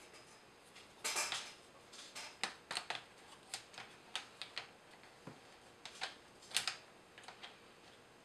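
Irregular small clicks and clinks of plastic and metal RC parts being handled as a drive shaft is fitted to the front end of a Traxxas Summit RC truck, with a louder knock about a second in and another later on.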